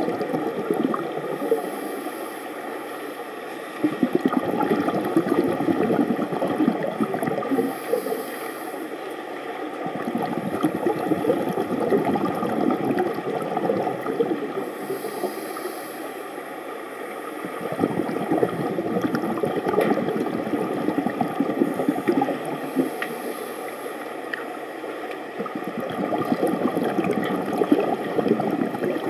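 Scuba divers' regulator exhaust bubbles heard underwater, a continuous gurgling that swells and eases about every six to seven seconds with each breath out.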